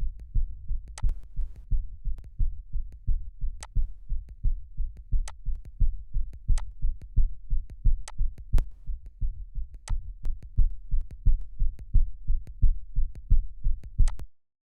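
Edited heartbeat sound effect: a fast, regular run of deep, low thumps that cuts off abruptly just before the end. Sharp clicks are scattered through it.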